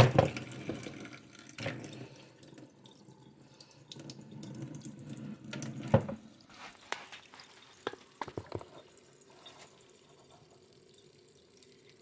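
Water from a sink tap splashing as a doll's hair is wetted under it, with irregular splashes and small knocks against the sink. It fades to near quiet about three-quarters of the way through.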